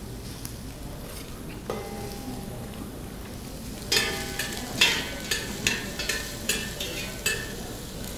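Diced onion, celery and carrot sizzling as they go into a hot stockpot. In the second half a metal spoon knocks and scrapes against a steel hotel pan about eight times, each knock ringing briefly.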